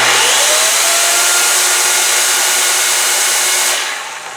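Makita UC3551A corded electric chainsaw run at full speed with no load: its motor spins up quickly with a rising whine, holds a steady high-speed whine and chain noise, then winds down near the end.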